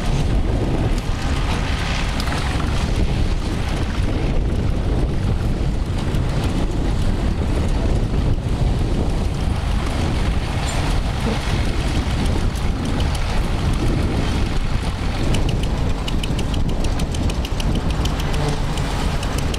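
Wind buffeting the microphone over a tractor engine running steadily in a field, with a faint rapid ticking near the end.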